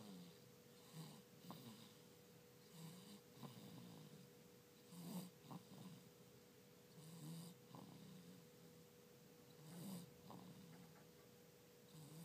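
Faint snoring from a sleeper with a cold, one breath every two to two and a half seconds, with a thin whistle on some breaths. A faint steady hum runs underneath.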